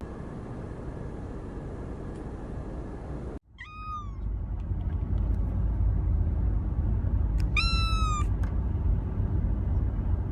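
Kittens meowing, high-pitched: a single meow about a third of the way in, then a quick run of three or four meows past the middle. Under the meows is a steady low rumble. Before that, a steady hiss cuts off suddenly.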